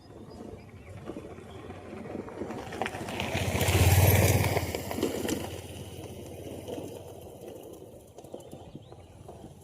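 A motor engine passing by, growing louder to its loudest about four seconds in and then fading away.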